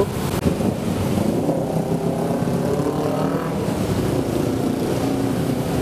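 Road traffic running steadily, with one motor vehicle's engine passing close and its note rising about two seconds in.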